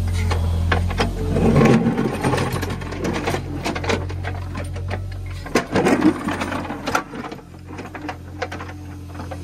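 Mini excavator digging: the toothed bucket scrapes and bites into dry, stony soil, with clatter of stones and clods over the low hum of the machine's engine. The loudest scraping comes about five and a half to six seconds in.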